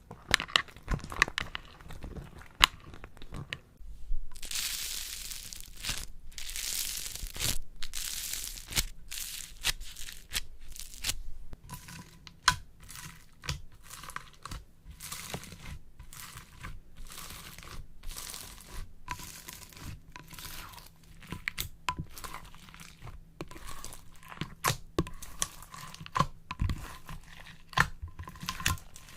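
Close-up crunching and crackling of a crisp material being handled, with many short, sharp crackles. A longer hissy tearing or crinkling stretch runs through the first third.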